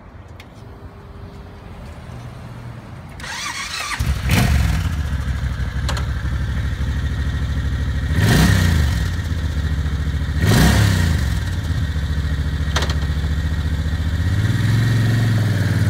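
Suzuki Boulevard C90T's 1500cc V-twin engine cranked on the electric starter, catching about four seconds in, then idling with two short throttle blips a couple of seconds apart and a gentler rev near the end.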